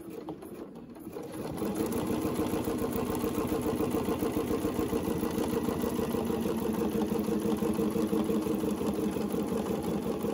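Domestic sewing machine stitching steadily at speed during free-motion ruler quilting, starting up about a second and a half in.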